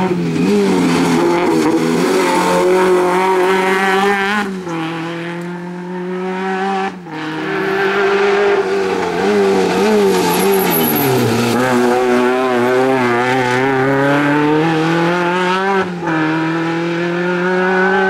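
Peugeot 309 GTi 16v rally car's 2.0-litre 16-valve four-cylinder engine revving hard at racing speed. Its pitch climbs and drops sharply twice in the first seven seconds, sinks low around the middle, then climbs again as the car pulls away.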